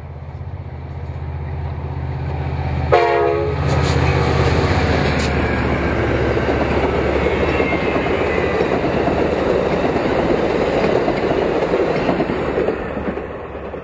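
Amtrak Pacific Surfliner passenger train passing close by. The diesel locomotive's engine drone builds as it approaches, with a short horn blast about three seconds in. Then comes the steady rush and rumble of the bilevel cars' wheels on the rails, dropping off near the end.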